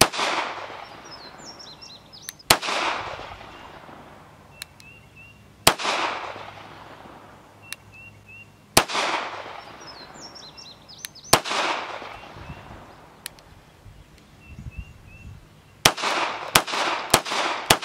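Browning BDA .380 ACP semi-automatic pistol being fired outdoors. Single shots come about three seconds apart, then four in quick succession near the end, each trailing off in echo. Birds chirp faintly between the shots.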